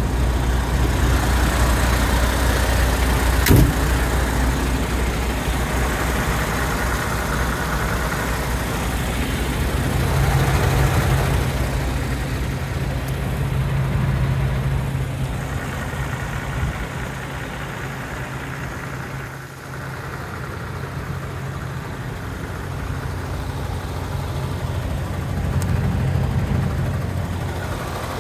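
MAN TGX 26.480 truck's six-cylinder diesel engine idling steadily, with a single sharp click about three and a half seconds in.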